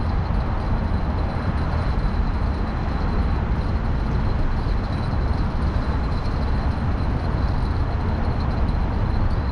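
Steady rumble of road traffic from a nearby highway, with a faint steady high tone over it.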